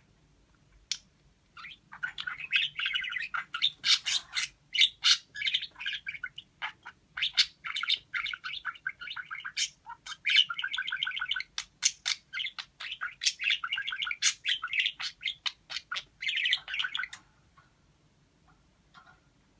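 Pet parakeet chattering in a fast, warbling stream mixed with sharp clicks and short squawks, stopping about three seconds before the end.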